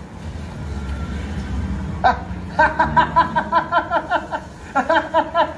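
A man laughing in a rapid run of high-pitched 'ha's, about four or five a second, starting about two seconds in after a low rumble and breaking off briefly before a second run near the end. Heard through cinema speakers.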